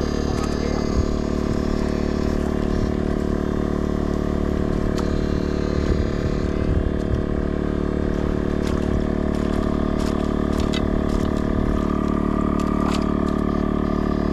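Steady mechanical drone with even, unchanging tones, overlaid by scattered light scrapes and clicks.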